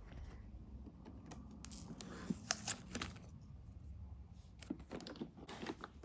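Scattered light clicks and taps of small plastic parts being handled and fitted on a robot vacuum, with a few sharper clicks in the middle and near the end.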